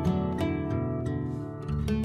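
Background music: plucked acoustic guitar notes and strums, ending on a ringing chord.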